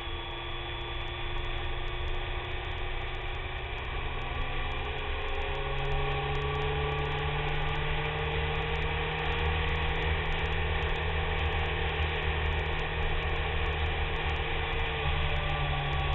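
BMW K1300S inline-four engine running under way, with steady wind and road hiss. The engine note steps up in pitch about five seconds in and eases back slightly near the end.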